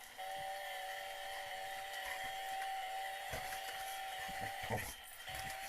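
Chainsaw running at a steady speed, a steady whine that drops out briefly about five seconds in and then returns.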